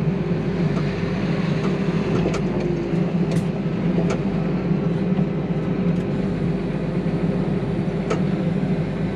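Tractor engine running steadily, heard from inside the closed cab, with a few light clicks or rattles now and then.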